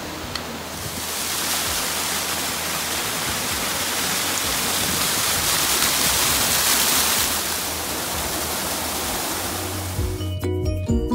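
Rushing water of a mountain stream, a steady hiss that swells about a second in and is loudest around the middle. Near the end, background music with a run of short, distinct notes comes in.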